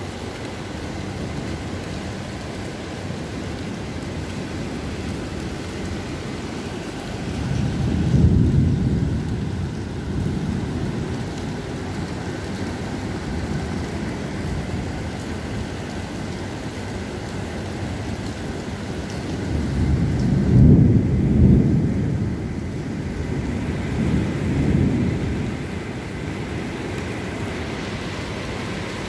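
Steady heavy rain hissing, with deep low rumbles swelling up about eight seconds in and again, longer, from about twenty to twenty-five seconds in.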